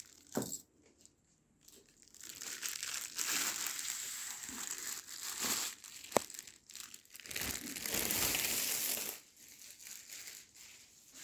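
Packaging crinkling and rustling for several seconds as the air rifle is unpacked from its box, with one sharp click about six seconds in.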